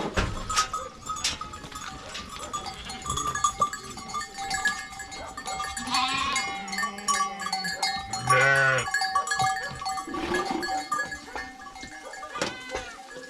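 Sheep and goats bleating: several separate calls, the loudest a wavering bleat about eight seconds in.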